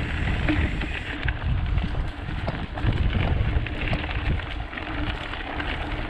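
Mountain bike riding on a stony dirt singletrack. Wind rumbles on the microphone, with scattered clicks and crunches from the tyres on loose stones and the bike rattling over them.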